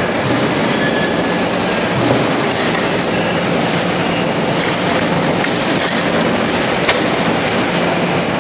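Loud, steady din of forging-shop machinery under a low hum, with one sharp knock about seven seconds in.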